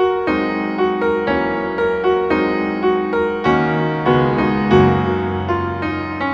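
Background piano music: a gentle melody of struck notes, about two a second, each fading as the next begins.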